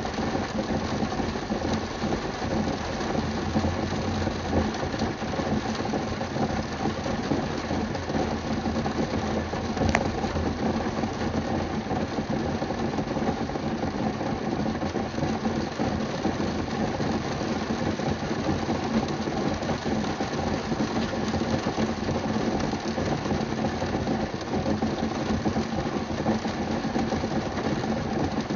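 Rain hitting a car's roof and windows, heard from inside the car: a steady, dense patter of drops, with one sharper tick about ten seconds in.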